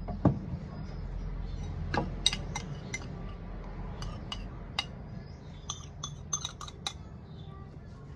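A metal spoon and fork clinking against a serving dish as a salad is tossed, in irregular sharp clinks with a quick run of them about six to seven seconds in. A dull knock comes near the start, and a low steady hum runs underneath.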